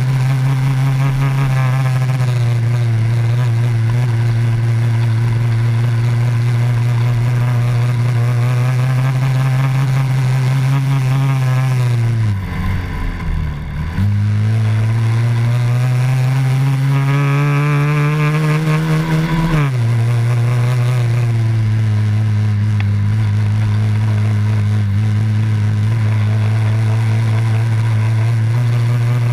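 Honda Dax 70's small single-cylinder four-stroke engine heard on board while riding, holding a steady note. About twelve seconds in the engine note falls away and goes quieter for a couple of seconds. The revs then climb for about five seconds and cut back sharply, after which the note is steady again.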